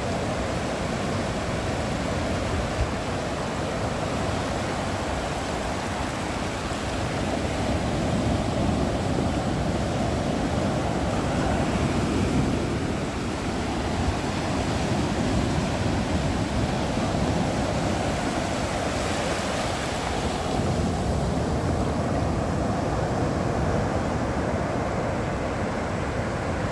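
Ocean surf: a continuous rush of waves breaking and washing in, swelling a little about a third of the way through.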